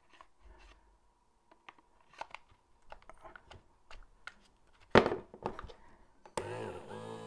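Light plastic clicks and handling of a Dremel 770 cordless rotary tool's housing as it is pressed together, with a sharp snap about five seconds in. About a second later the tool's small electric motor starts up with a steady whirr, running on the rebuilt 7.2-volt NiCad battery pack.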